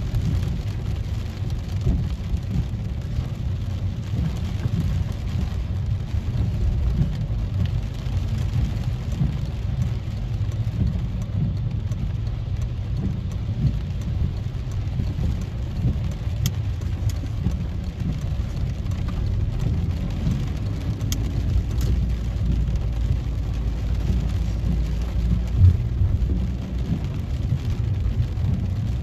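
Rain falling on a car's roof and windscreen, heard from inside the cabin while driving, over a steady low rumble of road and engine noise.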